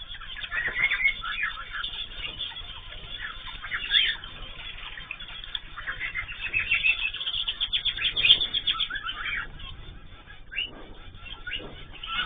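A group of cage birds (cockatiels, zebra finches and canaries) chirping and calling over one another in quick, overlapping short notes, with louder bursts about four and eight seconds in.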